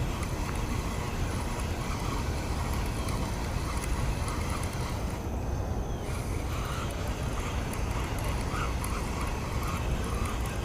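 Steady low wind rumble buffeting the microphone in a storm, with faint short chirps in the background from about six seconds in.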